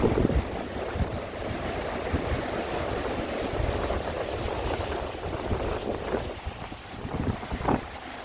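Sea waves washing and breaking against rocks, with wind buffeting the microphone. A few louder low thumps come at the very start and again near the end.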